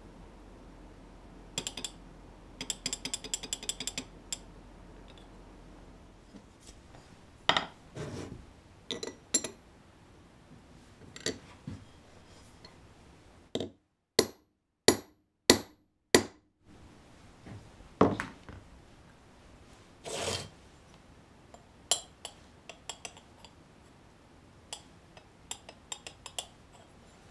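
Hammer striking a Japanese plane blade resting on a small steel anvil, tapping out the back of the blade (uradashi): five sharp metallic blows about half a second apart midway, the loudest sounds. Before and after, clinks and light taps of the steel blade being handled and set down on the bench mat.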